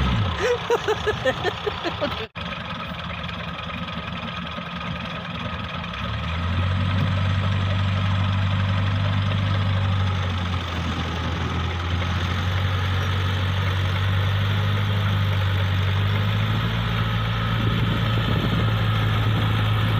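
Engines of a Massey Ferguson 240 tractor and a Toyota Corolla running hard under load as they pull against each other. The low steady drone gets louder about six seconds in and again near the end, with a brief dropout just after two seconds.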